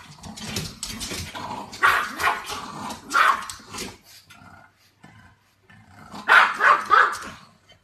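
Pug barking in short outbursts: a couple of barks about two and three seconds in, then three quick barks a little after six seconds.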